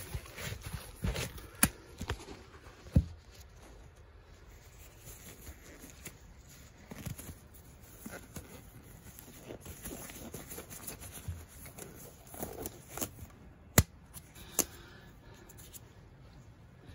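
Disposable rubber gloves being pulled onto the hands: faint stretching and rustling, with a few sharp clicks and snaps scattered through.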